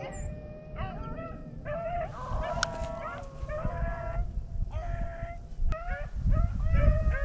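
A pack of rabbit dogs baying, several voices overlapping in short repeated calls, as they run a jumped rabbit's trail. Wind rumbles on the microphone, growing stronger near the end.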